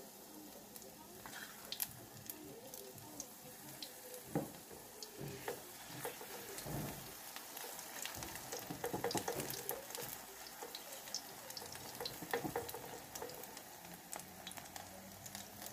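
Snail-and-egg omelette batter sizzling as it fries in oil in a wok, with a spatula scraping and tapping against the pan and a steel bowl now and then.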